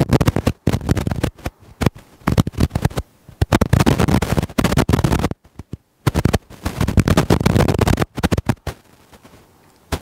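Loud crackling and popping from a faulty microphone signal: dense runs of rapid pops with short breaks between them, thinning to scattered pops near the end.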